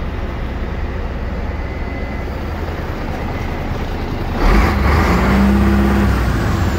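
MAN 19.464 truck's six-cylinder diesel engine idling steadily, heard from inside the cab. About four and a half seconds in there is a thump, then a louder, fuller rush of engine noise as the cab door opens, easing off again about two seconds later.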